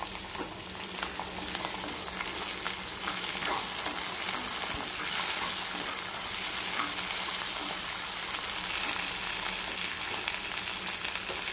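Chopped tomato, onion, green chilli and curry leaves sizzling in hot oil in an iron kadai, with the tomato freshly added to the softened onions. A wooden spatula stirs through them, making scattered scrapes and taps against the pan.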